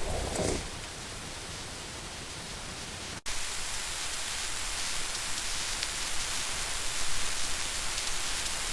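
Steady rain sound, an even hiss. It cuts out for an instant about three seconds in and comes back slightly louder, as the rain grows heavier. A short soft sound is heard right at the start.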